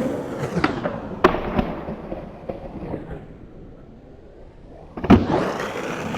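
Skateboard wheels rolling and a few board knocks, slowed down so they sink in pitch and go dull, then speed back up; a sharp, loud crack of the board hitting comes about five seconds in.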